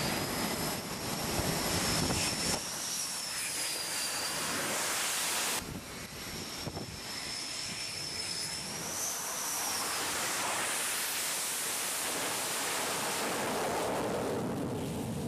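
F/A-18 fighter jet engines on approach to a carrier deck: a high, thin turbine whine that wavers up and down over a steady rushing jet noise. The sound cuts off abruptly and restarts about five and a half seconds in.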